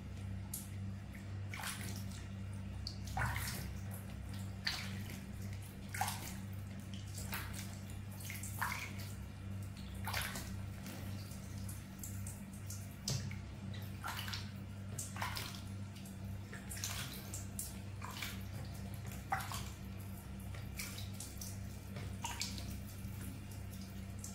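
Small splashes and drips of water, one every second or so, as a wet baby monkey's fur is washed by hand with water from a plastic dipper. A steady low hum runs underneath.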